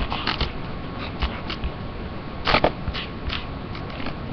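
Handling noise close to the microphone: a string of short clicks and knocks, the loudest about two and a half seconds in, as hands move craft things on the table.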